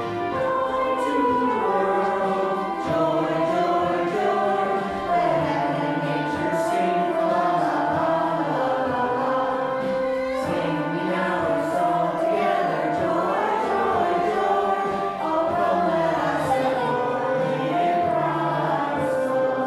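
A choir singing a slow hymn with long held notes.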